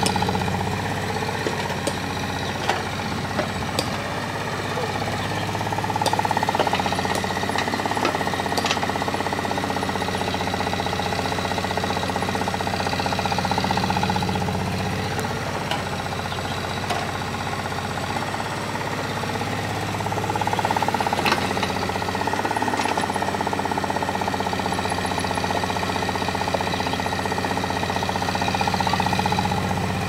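Caterpillar E140 hydraulic excavator's diesel engine running steadily while digging, swelling under load twice, about six seconds in and again for most of the second half. A few sharp knocks are scattered through it.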